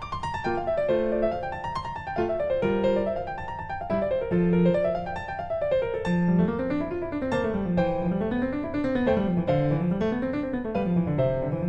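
Background piano music playing flowing up-and-down arpeggios over a walking bass line.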